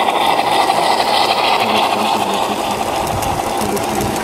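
G-scale model locomotive running past on garden-railway track, its electric motor and gears giving a steady whirr.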